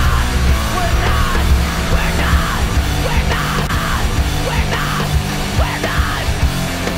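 Loud heavy rock music.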